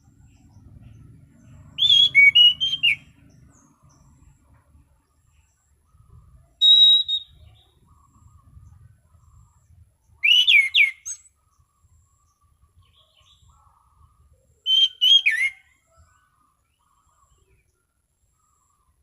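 Anis cendana thrush singing four short phrases of clear, quick whistled notes that slide up and down, spaced a few seconds apart.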